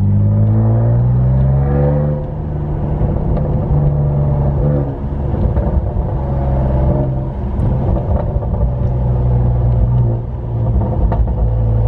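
Saab 9-3 Turbo X's turbocharged 2.8-litre V6 on a nearly straight-piped Krona downpipe and midpipe exhaust, heard from inside the cabin. It revs up over the first two seconds, then holds and drops between steady levels as the car is driven and lifted off, with a few faint crackles: the exhaust backfires the driver is trying to show.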